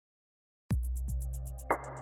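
Electronic dance music starting about two-thirds of a second in after silence: a kick drum, a steady bass, quick even hi-hat ticks, and a chord that swells in near the end.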